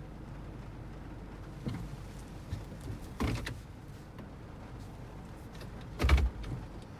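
Toyota Sienta being handled: a few light clicks and a short mechanical sound about three seconds in, then a heavy thud about six seconds in, over a steady low hum.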